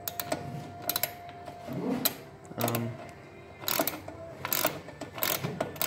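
Irregular sharp metal clicks and clinks of a socket wrench working the bolt of a garage door track bracket.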